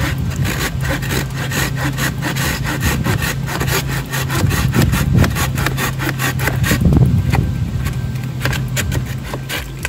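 Tabor Tools 8-inch folding pruning saw, its coarse 6-teeth-per-inch cross-ground blade cutting through a wrist-thick piece of dead wood in quick, even back-and-forth strokes, several a second. A steady low hum runs underneath.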